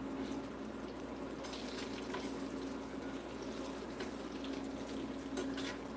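Battered Oreos deep-frying in a small saucepan of hot oil: a steady bubbling sizzle, with a few light taps of a fork in the pan.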